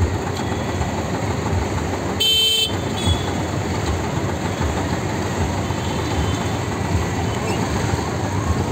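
A vehicle horn gives one short toot about two seconds in, over steady street noise.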